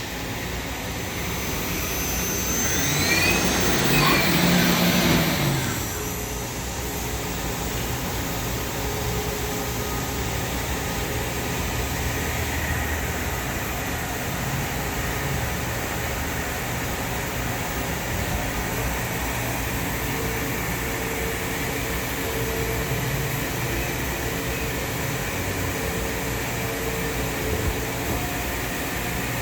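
Doosan Puma TT1800SY CNC turning center running with a steady mechanical hum. A few seconds in it gets louder for a while, with whines that rise and then fall in pitch.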